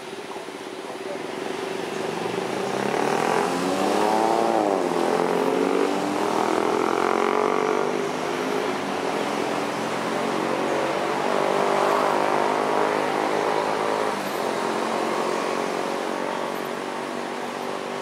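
A motor engine running. Its pitch climbs for a couple of seconds and drops back about four to five seconds in, then holds steady.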